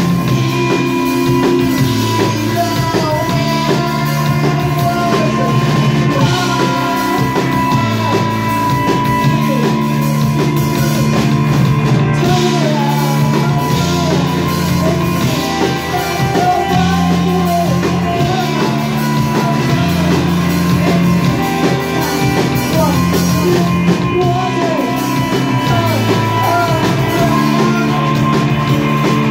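A live rock band playing: a woman singing over electric guitar, drum kit and keyboard, with sustained low bass notes that step from one to the next every second or two.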